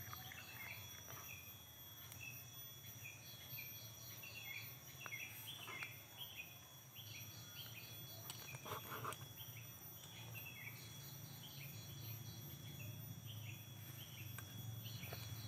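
Faint outdoor ambience: birds chirping in quick runs of short, falling calls over a steady high insect drone. A few soft knocks stand out, loudest about nine seconds in.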